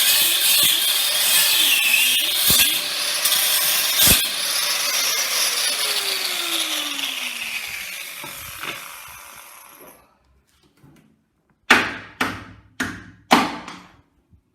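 Handheld power tool cutting through a seized, rusted nut with a harsh grinding hiss, then winding down with a falling whine and stopping. After a short pause come four sharp knocks in quick succession.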